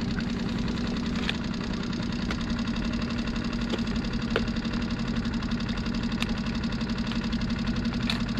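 Mercury outboard motor idling steadily, an even low hum, with a few light clicks over it.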